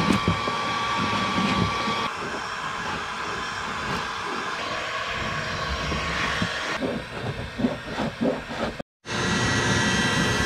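Handheld rotary tool running steadily, grinding the old paint off the edge of a painted wooden deck beam. The sound breaks off for a moment near the end, then resumes.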